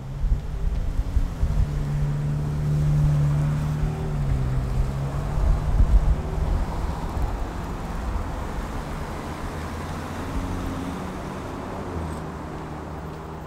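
A motor vehicle's engine running close by over a low rumble. Its note drops about four seconds in, then the sound fades away as it moves off.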